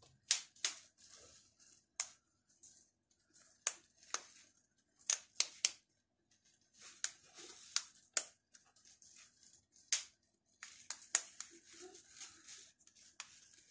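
Back cover of an Infinix Hot 4 Pro smartphone being pried off by fingernail: irregular sharp clicks as the cover's snap-in clips pop loose one after another, with scratching of nail on the cover's edge between them.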